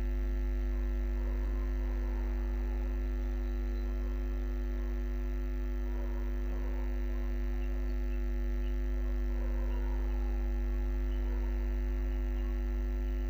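Steady low electrical hum, like mains hum, with a few steady higher tones over it and no change throughout.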